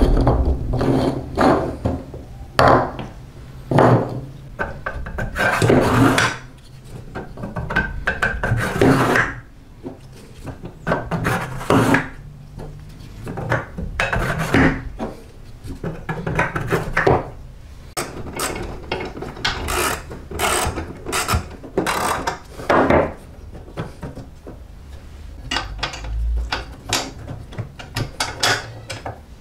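Hand work on a push reel lawn mower's metal parts on a wooden workbench: irregular clicks and taps with short scraping rubs as parts are handled and a screwdriver is worked.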